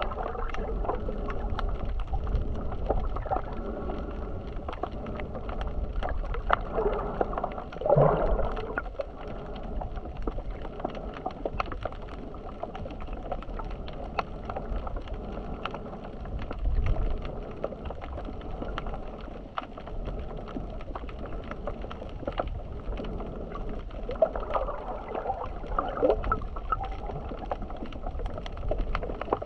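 Muffled sea water sloshing and gurgling around the camera, with a low rumble and many small scattered clicks. It swells louder briefly about 8 seconds in, again near 17 seconds, and a few times near the end.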